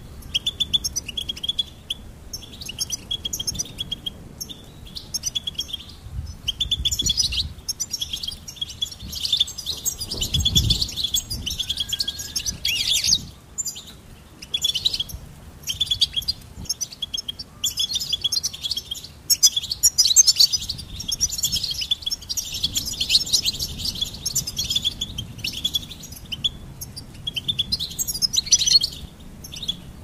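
European goldfinch singing: long runs of rapid, high, tinkling twitters with short pauses between phrases. A brief low rumble comes about ten seconds in.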